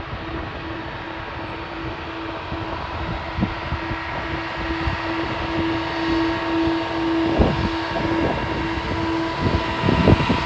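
Jet airliner engines running with a steady whine, slowly getting louder. A few low thumps come near the end.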